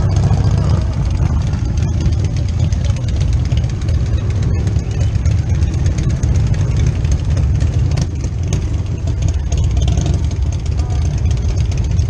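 Motorcycle engine idling steadily, with voices in the background.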